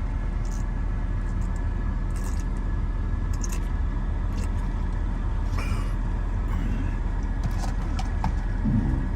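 Steady low rumble of a car's running engine heard inside the cabin, with a few faint clicks and rustles.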